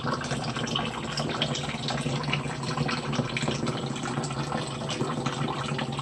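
Tap water running steadily into a partly filled tub, with small irregular splashes.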